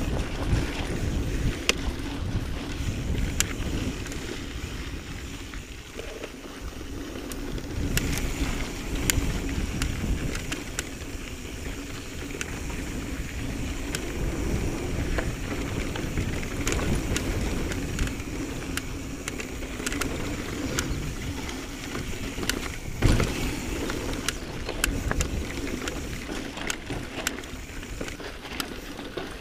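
Mountain bike riding down a dirt singletrack: tyres rolling over dirt and rocks, with wind on the microphone. The bike rattles with many sharp clicks and knocks over the bumps, and one heavy knock comes about 23 seconds in.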